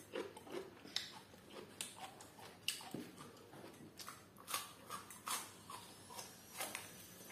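Close-miked eating sounds: crisp bites and crunching of a raw vegetable stick, with wet mouth clicks and chewing, in irregular sharp snaps about twice a second.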